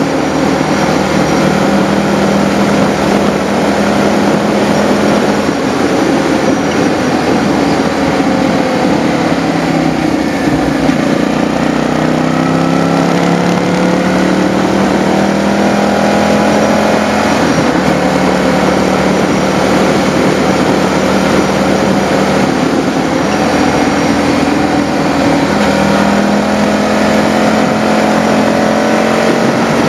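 Motorcycle engine running under way with wind noise rushing over the microphone. The engine pitch shifts several times around the middle as the revs change, then holds steady again.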